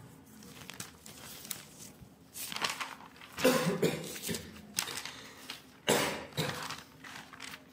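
A person coughing in several short fits in a small room, over a faint steady hum.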